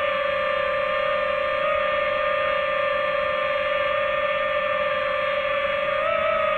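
Quadcopter drone's propellers and motors whining with a steady high hum, the pitch lifting briefly near the end.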